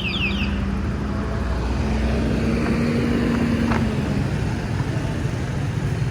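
Road traffic noise with a motor vehicle's engine humming steadily for a couple of seconds in the middle. A brief sharp click is heard near the end of that hum.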